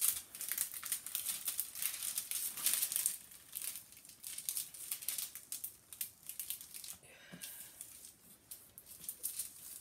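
Clear plastic film over a diamond painting canvas crinkling and crackling as it is handled and pressed flat, a dense crackle for about seven seconds that then turns fainter.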